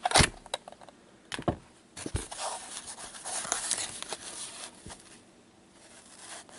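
Hockey card box packaging being opened and handled: a few sharp clicks and taps, then a couple of seconds of rustling, crinkling wrapper and cardboard.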